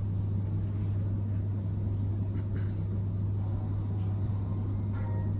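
A steady low hum with a faint even background noise and no speech.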